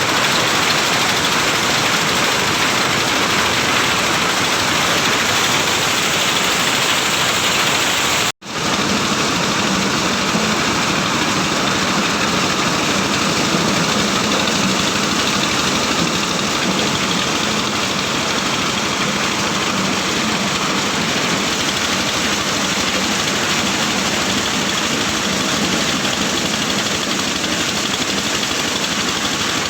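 Engine-driven corn sheller running steadily, its motor droning under a dense rattling noise of cobs being threshed. The sound drops out abruptly for a moment about eight seconds in, then resumes with a steady low hum beneath.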